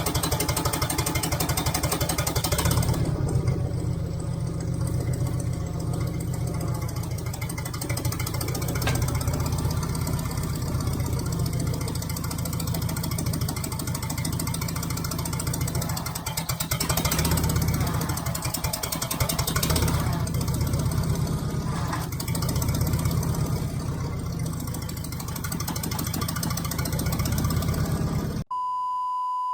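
Compact loader's engine running steadily, swelling and easing a little in loudness as it works. Near the end the engine sound drops out suddenly, and a single steady high tone sounds for about a second and a half.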